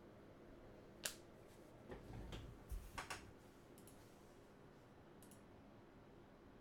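Faint clicks and soft taps from trading cards and their plastic holders being handled on a table. There is one sharp click about a second in, a short cluster of clicks and light knocks around two to three seconds in, and a few faint ticks later.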